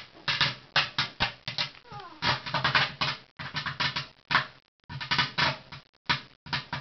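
Firework going off inside a microwave oven: dense, irregular crackling and hissing in bursts, broken by short silent gaps.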